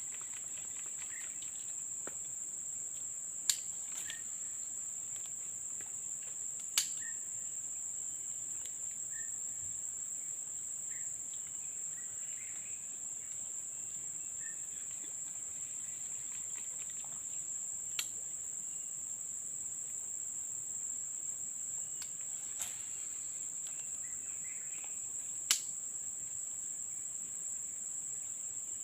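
Steady high-pitched drone of crickets or other insects, with a few short chirps underneath. Five sharp clicks stand out, the loudest about three and a half seconds in and near seven seconds.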